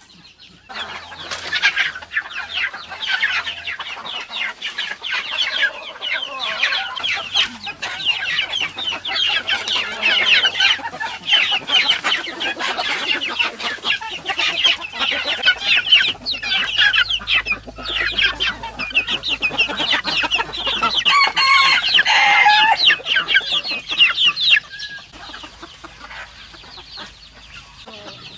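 A flock of domestic chickens clucking continuously, many birds calling over one another. The calling dies down to a quieter stretch near the end.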